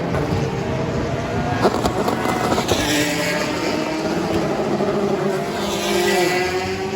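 Several endurance racing cars running at speed on track, their engines overlapping and rising and falling in pitch as they pass and shift. A few sharp pops come about two seconds in, and one engine climbs steadily in pitch over the second half.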